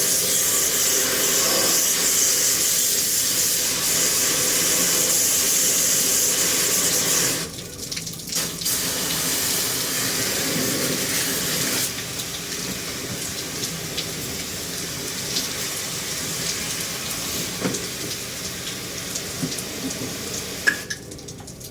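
Water spray hissing and splashing while an air conditioner is washed down. The spray stops briefly about seven seconds in, resumes, then runs on more softly in the second half, with one sharp click near the end.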